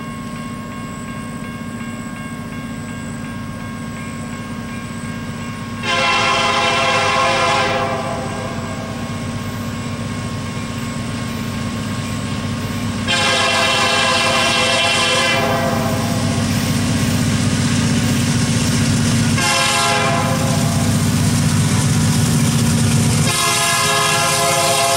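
Diesel freight locomotive, EMD GP39E BNSF 2911, running under power and growing louder as it approaches, its air horn sounding long, long, short, long: the standard warning for a level crossing.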